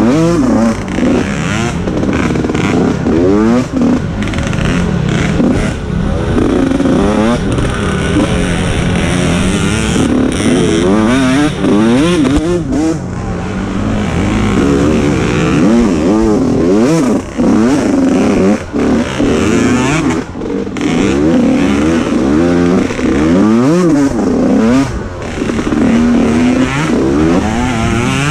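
Mini dirt bike engine revving hard and backing off over and over, its pitch rising and falling every second or two as the rider accelerates and eases off through the course.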